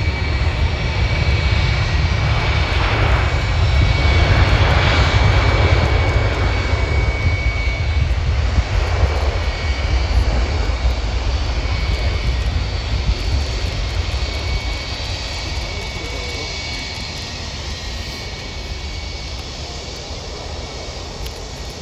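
Emirates Airbus A380's four jet engines at takeoff power: a deep rumble with a steady high whine, loudest a few seconds in, then fading as the airliner runs down the runway and climbs away.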